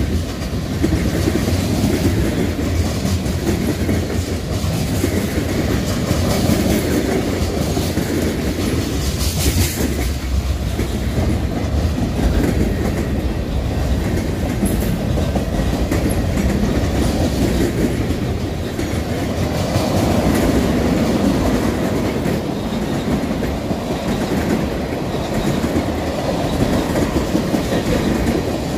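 Freight train of tank cars, an autorack and covered hoppers rolling past close by: a steady rumble and clatter of steel wheels on the rails.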